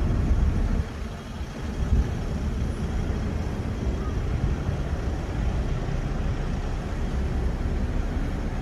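Steady low rumble of city road traffic, swelling briefly near the start and about two seconds in.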